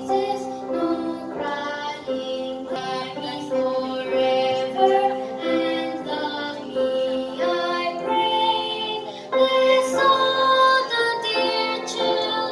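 Voices singing a Christmas carol over instrumental accompaniment, the melody moving note by note.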